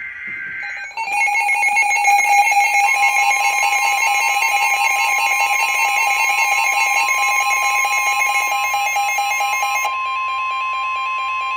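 Emergency Alert System tones. A brief higher-pitched data burst of the digital alert header comes first. Then the harsh two-tone EAS attention signal sounds for about nine seconds, joined a few seconds in by the steady single-pitch weather radio warning tone, which carries on alone after the two-tone signal stops near the end.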